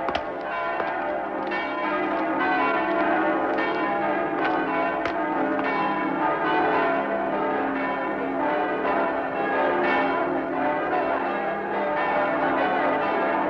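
Church bells ringing, stroke after stroke, their tones overlapping and hanging on into a continuous peal.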